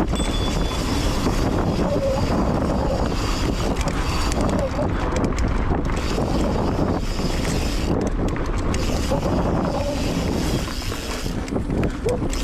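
Wind rushing over the microphone, with steady rumble and clicking rattle from a mountain bike rolling over dirt trail.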